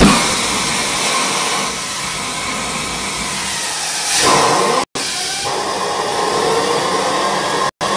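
Homemade gas turbine engine running during its first start with a loud, steady rushing hiss. A thump at the very start, a surging whoosh about four seconds in as a flame shoots from the exhaust, and a faint whine that rises in pitch toward the end. The sound cuts out briefly twice.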